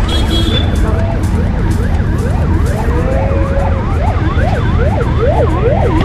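An electronic emergency-vehicle siren in a fast up-and-down yelp, rising and falling about two to three times a second and growing louder about halfway through. Under it is a heavy, steady low road rumble.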